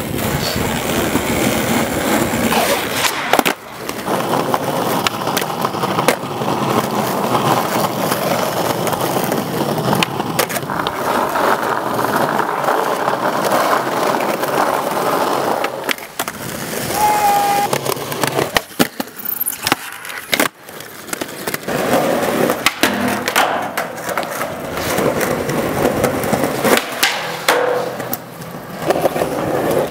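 Skateboard wheels rolling over concrete and paving, broken again and again by the sharp clacks of the board's tail popping and landing.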